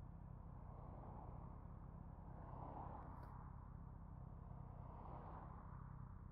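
Faint, muffled riding noise from a Honda CBR650R: a low steady engine hum with wind rushing over it, swelling about three seconds in and again near five seconds.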